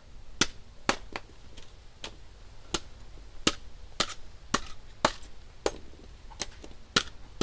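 A blade chopping into nipa palm fruit: a run of sharp strikes, roughly two a second at uneven spacing.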